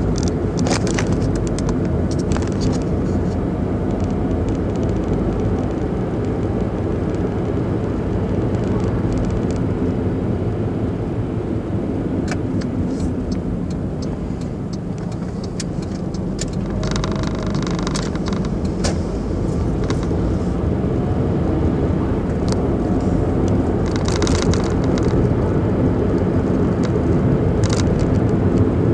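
Car engine and tyre rumble heard from inside the cabin of a car driving slowly through town, with scattered light clicks and rattles and a short run of rapid ticking about halfway through.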